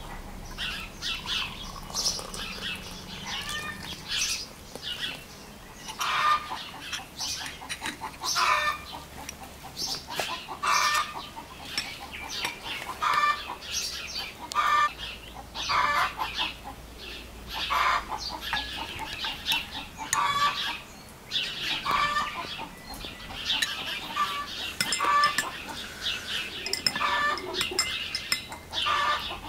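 Domestic chickens clucking: many short calls in an irregular run.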